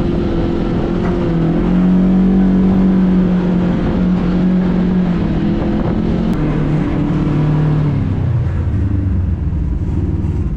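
Kawasaki KRX 1000 side-by-side UTV's parallel-twin engine running while driving off road. Engine speed climbs about two seconds in, holds, then eases back down in steps in the last few seconds.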